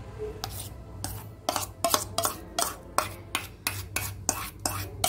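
Steel bowl and spatula clinking and scraping in quick repeated strokes, about three a second, as custard apple pulp is scraped out of the bowl into a pan of milk.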